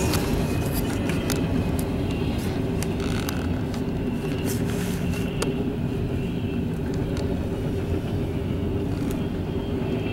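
Double-stack intermodal freight train rolling past at speed: a steady rumble of steel wheels on rail, with scattered sharp clicks.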